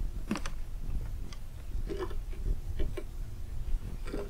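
A handful of irregular clicks and ticks from a fishing reel and rod being worked while a hooked catfish is fought, over a steady low rumble.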